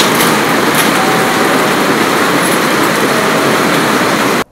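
A loud, steady rushing noise that cuts off abruptly near the end.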